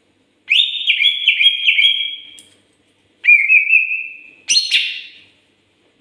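Male green leafbird (cucak ijo) singing loud whistled phrases: a quick run of about five notes lasting about two seconds, a shorter run about three seconds in, then a harsher, rasping burst.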